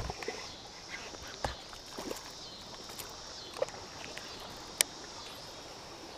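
Steady rush of river water running over a riffle, with a few sharp clicks and knocks, the clearest about one and a half and nearly five seconds in.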